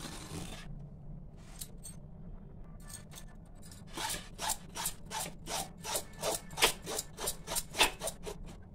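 Kitchen knife scraping the skin off a bottle gourd: a few separate scrapes, then from about halfway a quick even run of strokes, about three a second.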